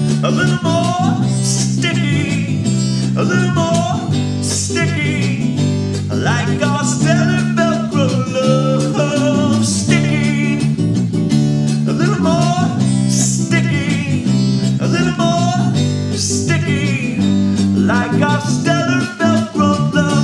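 Instrumental close of a folk song: strummed acoustic guitar under a wavering, bending harmonica melody. The music stops abruptly at the very end.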